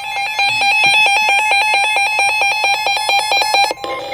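Electronic emergency alert tone announcing a new severe thunderstorm warning: a loud, rapidly warbling electronic beep pattern that cuts off abruptly near the end.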